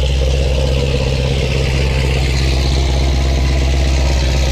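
A car engine idling steadily close by, a low, even rumble with a hiss above it.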